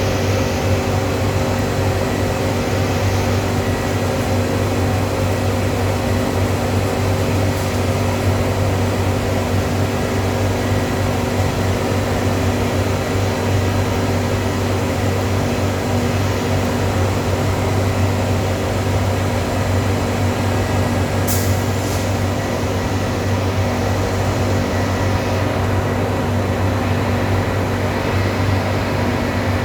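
Industrial cyclonic hot-air furnace and heat-exchanger plant running: a loud, steady machine hum with a low drone and several held tones. A brief click about 21 seconds in.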